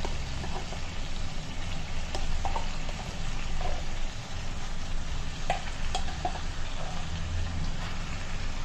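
Chicken frying in a pan as ground masala paste is added and stirred in, with a steady sizzle and a few sharp clicks of the spoon against the pan.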